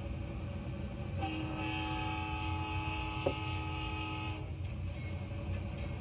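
Train horn sounding one steady blast of about three seconds, several notes at once, over the steady low rumble of a train, with a brief click partway through the blast.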